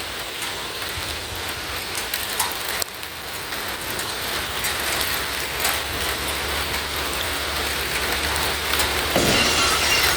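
Steady rain falling and pattering on a surface, with scattered sharp drip clicks and a low steady rumble underneath.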